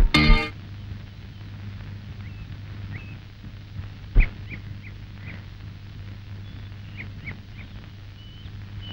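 Scattered short bird chirps over a steady low hum, with a single sharp thump about four seconds in.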